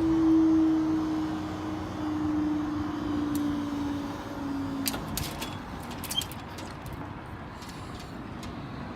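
Level crossing barrier mechanism humming as the barriers rise after the trains have cleared. The hum slowly drops in pitch and stops about five seconds in, followed by a clunk and a few scattered clicks.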